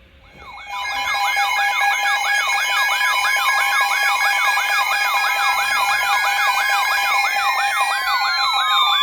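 Electronic alert siren: several rapid rising-and-falling wails, about three a second, layered over steady alarm tones. It starts about a second in, and near the end some of the tones slide down in pitch.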